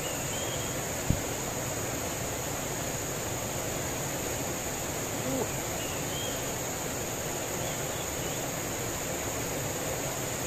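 Steady rushing of a fast, muddy river running over rocks, with one short low thump about a second in.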